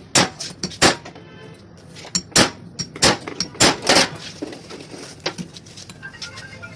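Metal tools and motorcycle engine parts knocking and clanking during engine disassembly: a quick series of sharp strikes, with one short metallic ring about a second in. The knocks thin out in the last couple of seconds.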